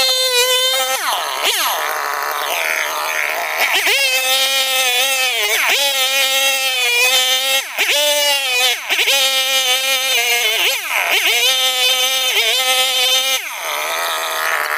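Mini chainsaw running at speed while cutting into a thick mango trunk, with a steady high whine whose pitch dips sharply and recovers every second or two as the chain takes the load.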